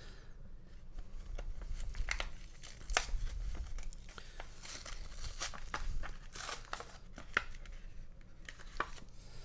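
Trading-card packaging being torn open and crinkled by hand: a run of irregular tears, crackles and small clicks, busiest a little past the middle.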